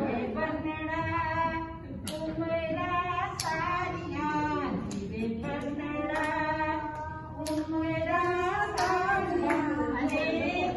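A woman singing a song without instruments, in long held notes.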